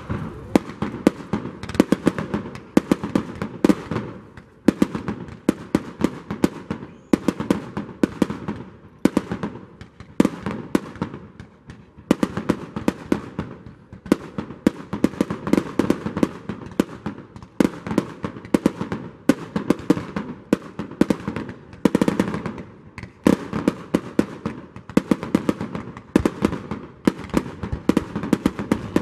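Aerial fireworks shells bursting: a dense, irregular run of sharp bangs and crackling pops, several a second, with a few brief lulls.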